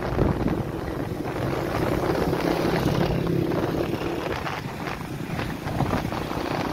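A vehicle driving along a road: a steady engine hum under road noise and wind rushing over the microphone.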